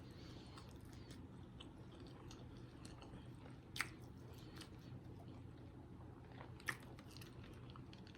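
Faint chewing of a sausage, egg and cheese biscuit, with two short wet mouth clicks about four and seven seconds in.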